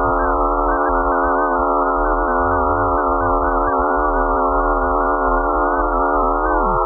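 Eerie electronic drone of many steady tones held together over a low rumble, the 'sound' the video gives for Phobos, moon of Mars. Near the end one tone starts to slide downward.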